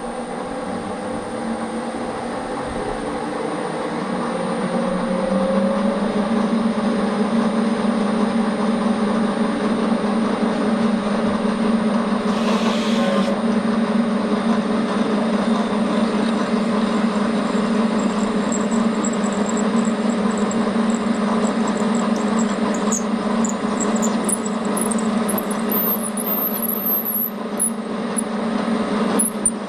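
Bridgeport milling machine's spindle running with a steady hum and a thin high whine while an 8 mm reamer is fed into the drilled bolt holes of a cylinder-cover casting. Short high squeaks from the cutting come in towards the end.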